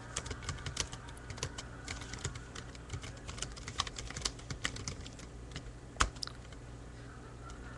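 Typing on a computer keyboard: a fast, uneven run of key clicks that ends shortly after one much louder key strike about six seconds in. A low steady hum sits underneath.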